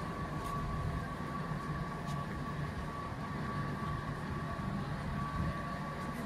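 Steady city-street background noise: a low rumble with a constant high-pitched hum running through it.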